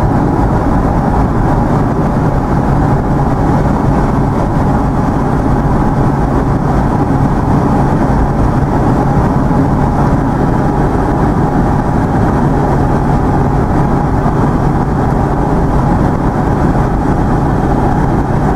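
Steady engine and road noise heard inside the cabin of a moving vehicle at cruising speed, with a constant low hum under it.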